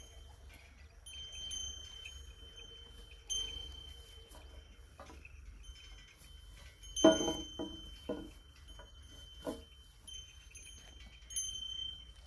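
Bells on ploughing bulls ringing now and then with a clear, high tone as the animals walk, with a few short knocks between, the loudest about seven seconds in.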